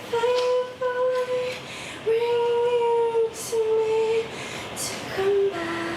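A woman singing a slow, wordless melody of long held notes, separated by short breaths, the pitch stepping lower in the last couple of seconds.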